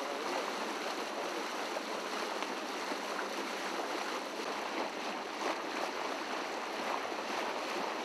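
Steady rush of foaming water along the hull of a sailing yacht under way.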